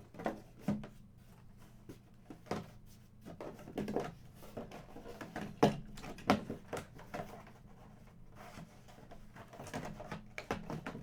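Irregular knocks, taps and rustles of boxed vinyl figures being handled and set down, a few of the knocks sharper than the rest.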